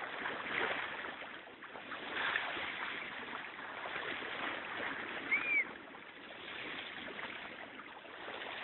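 Water sloshing and splashing, with a single short dolphin whistle that rises and falls, a little past five seconds in.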